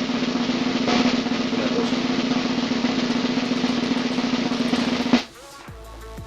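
Snare drum roll sound effect, steady for about five seconds, then cutting off suddenly, leaving quieter background music.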